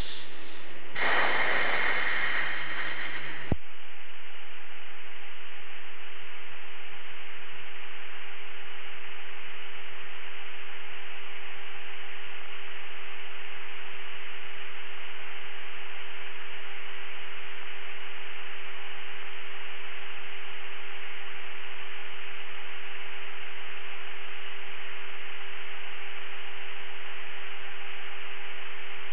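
Radio static on an open channel. A brighter burst of hiss cuts off sharply with a click about three and a half seconds in. After that comes a steady, even hiss with a constant hum tone running under it.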